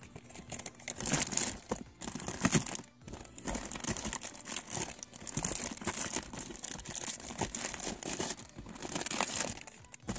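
Packing paper crinkling and rustling as hands dig through a cardboard shipping box of packaged deck boxes, with irregular crackles and short lulls.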